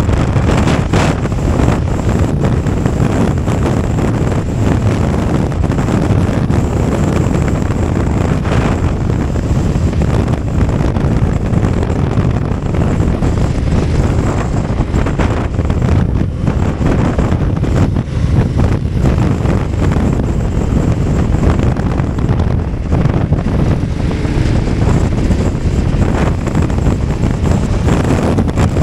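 Wind buffeting the microphone of a camera on a moving BMW F 850 GS motorcycle, with the bike's road and engine noise underneath: a loud, steady, low rumble.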